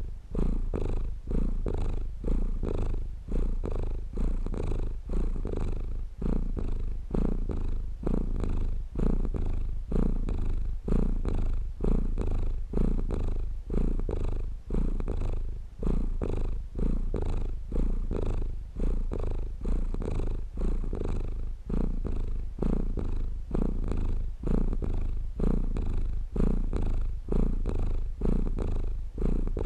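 A domestic cat purring steadily. The purr swells and dips in an even rhythm, about once a second, as the cat breathes in and out.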